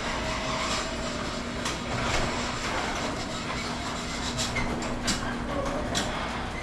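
A steady mechanical hum and rush with a constant low drone, broken by scattered light clicks and knocks.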